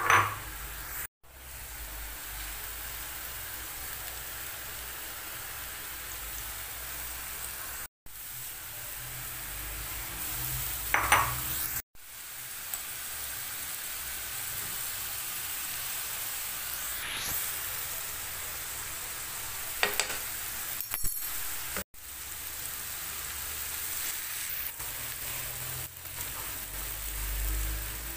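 Diced peppers, onion and grated vegetables sizzling steadily as they fry in oil in a frying pan, stirred with a wooden spoon, with a few sharp knocks of the spoon against the pan. The sizzle breaks off briefly several times.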